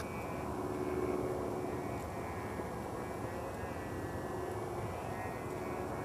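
A distant, steady engine drone with faintly wavering pitch, a little louder about a second in.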